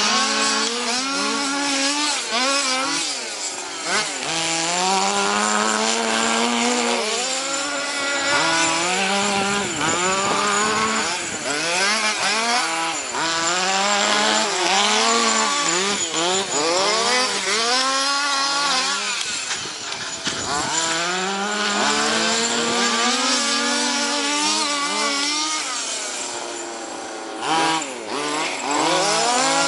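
Small two-stroke petrol engines of several large-scale RC cars, one a 26cc Nutech, racing together. They rev up and drop back over and over, their overlapping pitches rising and falling as each car accelerates and brakes.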